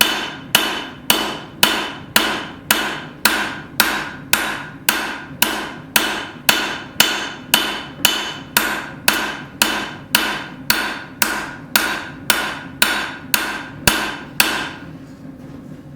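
Hammer striking hot steel on an anvil at a steady pace of about two blows a second, each blow ringing briefly, as the shank of a hook is drawn out into a smooth taper. The hammering stops about a second and a half before the end.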